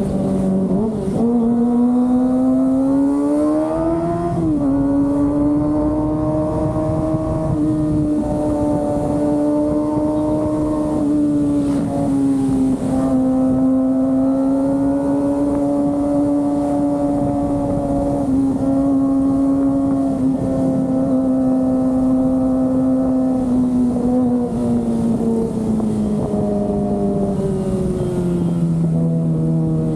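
Kawasaki ZX-25R's 250 cc inline-four engine pulling through the gears, with two quick upshifts near the start, then cruising at steady revs. Late on the revs drop back, and they climb again at the very end.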